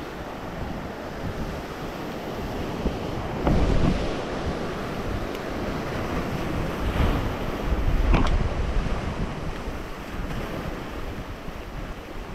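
Ocean waves breaking and washing against rocks, a steady rush of surf with two louder surges about four and eight seconds in, with wind buffeting the microphone.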